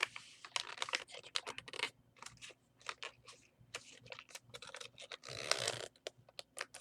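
Sheet of origami paper being folded and creased by hand: a run of crisp crackles and rustles, with a longer rustle about five and a half seconds in.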